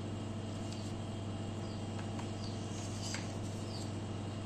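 Steady low hum of an egg incubator's machinery, with faint short falling peeps, about two a second, of chicks.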